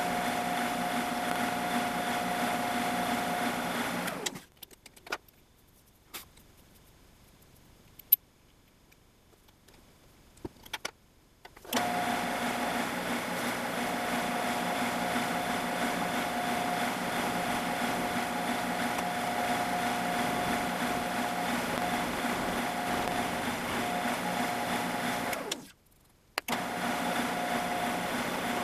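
Drill press motor running steadily with a held whine while drilling small holes in an aluminum part. It stops about four seconds in, leaving a quiet stretch with a few light clicks and one sharp tick, starts again about twelve seconds in, and cuts out briefly near the end.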